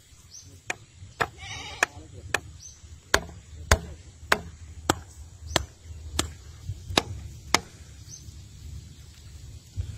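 A claw hammer striking a wooden post to drive it into the riverbank mud: about a dozen sharp knocks, roughly one every 0.6 s, that stop about three-quarters of the way through.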